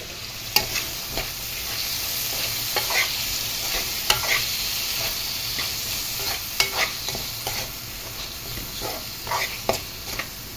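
Chopped onion, bell pepper and tomato sizzling in hot oil in a pan, with a utensil scraping and clicking against the pan as they are stirred. The sizzle eases a little toward the end.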